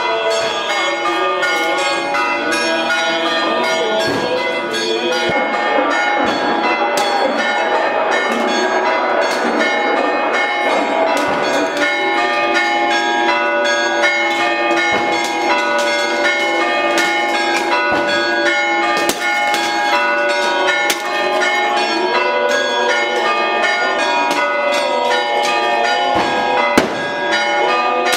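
Church bells ringing continuously in a dense, festive peal, with clay pots now and then smashing on the stone paving.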